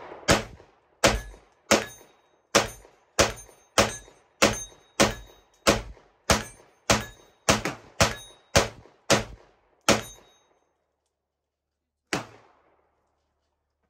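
Gunshots from a semi-automatic firearm fired at a steady pace: about sixteen shots, a little under two a second, each with a short echoing tail, then a pause of about two seconds and one last shot.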